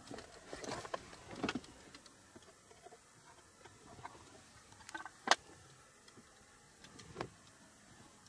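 Faint scattered clicks and knocks over a quiet background, a few in the first second or two, the sharpest about five seconds in and another near seven seconds.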